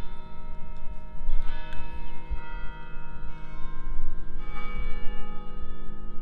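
Bells ringing: a series of struck bell tones roughly once a second, each ringing on and overlapping the next, over a low wind rumble.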